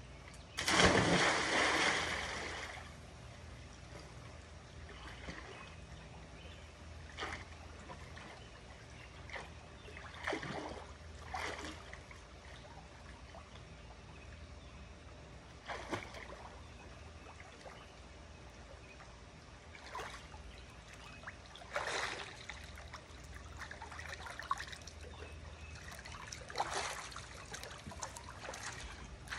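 A person plunging off a diving board into a swimming pool: one big splash about a second in, then scattered smaller splashes and sloshing as she swims across and climbs out of the water near the end.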